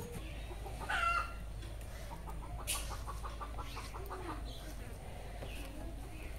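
Domestic chickens clucking: a short call about a second in, then a quick run of soft, evenly spaced clucks.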